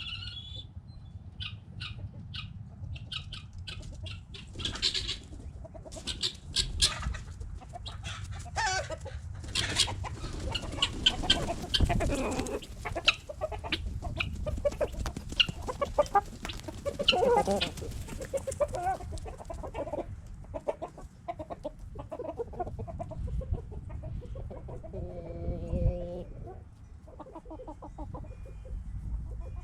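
Backyard chickens clucking and calling, many short calls one after another over a steady low rumble, with a longer drawn-out call near the end.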